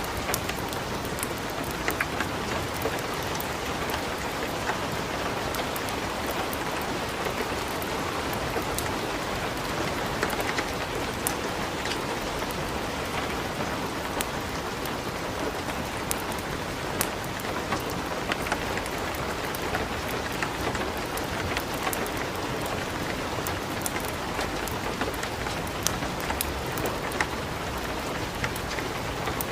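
Steady light rain falling, an even hiss, with scattered sharp crackles from a wood fire burning in a fireplace.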